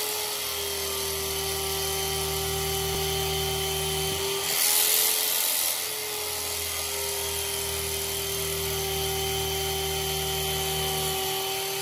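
A machine's electric motor running with a steady whine. About four and a half seconds in its pitch dips briefly as a louder hiss rises, then it returns to its steady pitch.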